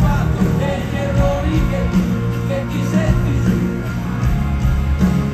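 Live rock band with lead singing, played loud through a stadium PA and heard from the stands.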